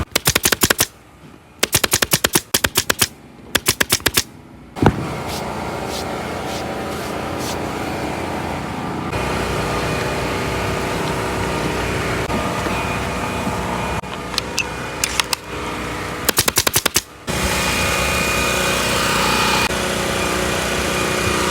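Staple gun fired in rapid bursts of sharp clicks as upholstery covers are stapled onto booth cushions: several bursts in the first five seconds and more around two-thirds of the way through. A steady engine hum runs underneath.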